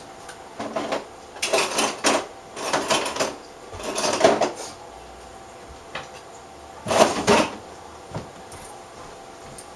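Hands handling LCD backlight parts on a workbench: about five short rustling, clattering bursts with pauses between them.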